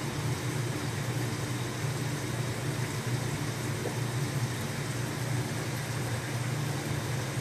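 Steady low hum over an even hiss from running machinery, with no change in level.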